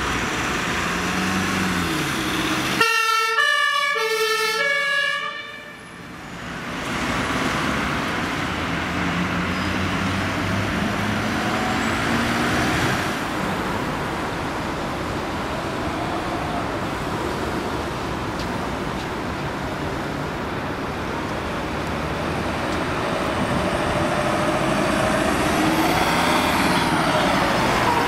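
Ambulances on emergency runs sounding German two-tone sirens (Martinshorn), with traffic and engine noise underneath. A few seconds in, the siren steps cleanly back and forth between two pitches; near the end a siren sweeps in pitch as a vehicle passes.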